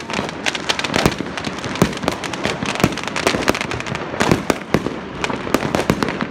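Many fireworks going off at once: a dense, irregular stream of pops, cracks and bangs, several a second, overlapping without a pause.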